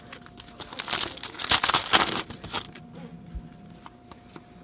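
Foil trading-card pack wrapper being torn open and crinkled, a dense crackling that starts about a second in and lasts about two seconds, followed by a few light rustles as the cards are handled.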